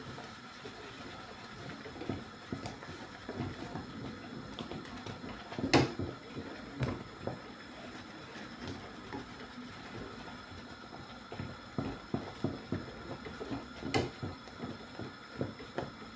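Wooden spatula turning thick plantain fufu dough in an aluminium pot: irregular soft thuds and squelches, with sharp knocks of the spatula against the pot about 6 and 14 seconds in.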